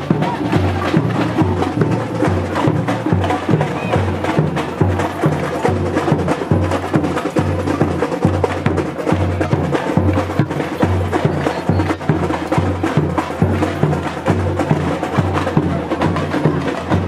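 Samba street band drumming: bass surdo drums beat a steady pulse under many quicker, sharp percussion strikes.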